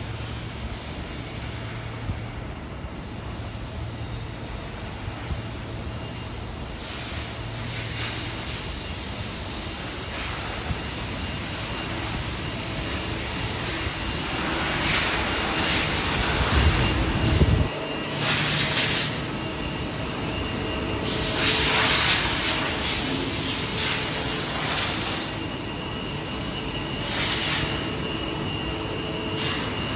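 Steady mechanical noise that slowly grows louder, broken from about halfway by several loud hissing bursts a second or a few seconds long.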